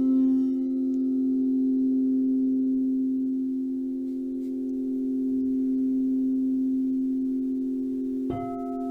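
Singing bowls ringing with a steady, pure low tone that swells and fades slowly, the higher overtones dying away within the first second. A bowl is struck again near the end and a new ring begins.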